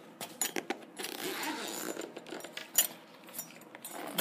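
Zipper being run around a nylon carrying case to open it, a rasping stretch about a second in, with fabric rustling and a few sharp clicks as the case is handled and flipped open.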